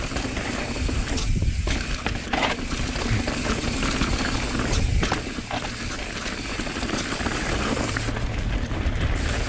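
Mountain bike riding fast down a rocky sandstone trail: tyre noise and rattling from the bike with frequent sharp knocks over the rock, and wind rumbling on the microphone.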